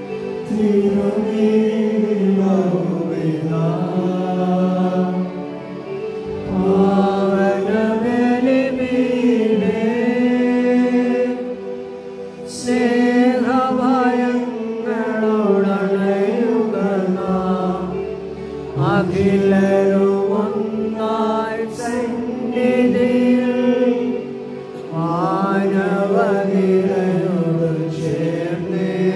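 Sung liturgical chant at a Malayalam Mass. The melody moves in phrases of about six seconds, with short pauses for breath between them.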